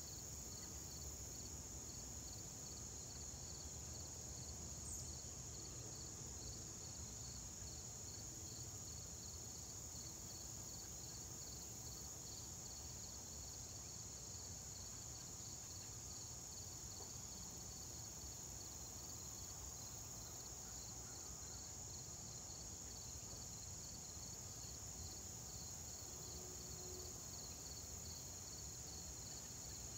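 Faint chorus of chirping insects: a steady high-pitched trill over a quicker pulsing chirp a little lower.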